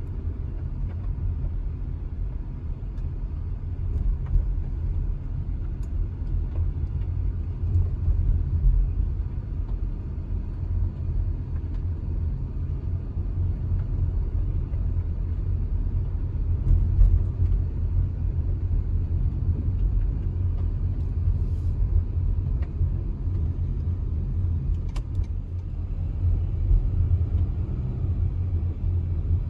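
Steady low rumble of a car driving slowly, engine and tyre noise heard inside the cabin.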